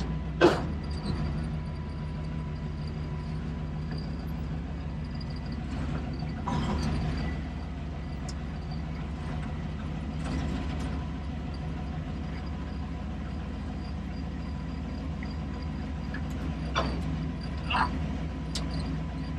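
A 1954 Chevrolet Del Ray's engine, newly fitted with FiTech electronic fuel injection, running steadily with a low hum on its first drive. A few short knocks and clicks come through, one just after the start and others near the middle and the end.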